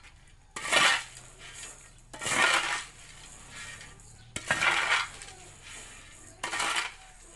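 Dried yellow corn kernels being pushed across a concrete floor with a long-handled tool, rattling and scraping in four strokes about two seconds apart.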